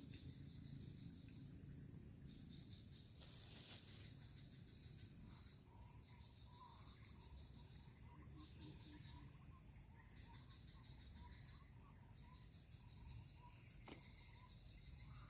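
Insects, crickets or cicadas, keeping up a steady high-pitched drone, with faint short chirps repeating through the middle and a brief rustle about three seconds in.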